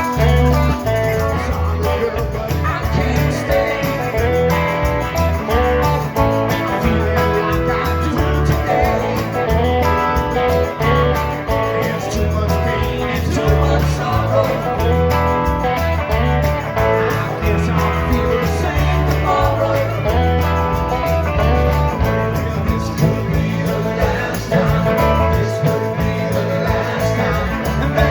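Live rock band playing, guitars over a steady bass line, with singing.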